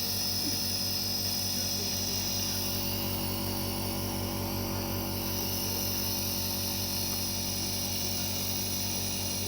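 Compressor nebulizer running with a steady droning hum and a hiss of air.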